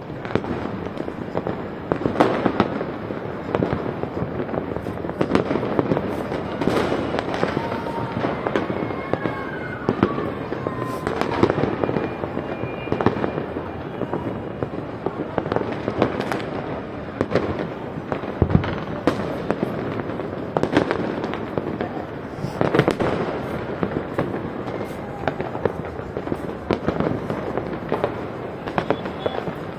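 New Year fireworks and firecrackers going off all around: a dense, continuous run of bangs and crackles. A few falling whistles come through about a third of the way in.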